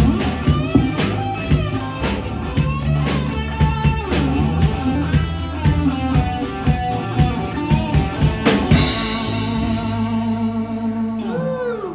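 Live rock band (electric guitar, electric bass and drum kit) playing with a steady beat. About nine seconds in, the band stops on a cymbal crash and the last chord rings out and fades.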